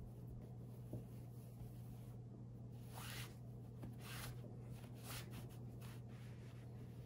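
Fabric strips rustling and swishing as they are pulled through the knots of a rag rug, with several soft swishes about three to five seconds in, over a faint steady low hum.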